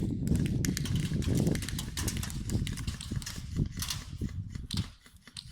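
Quick irregular clicks and knocks over a low rumble, like running footsteps and rattling gear during an airsoft game. The sound thins out and drops nearly to quiet about five seconds in.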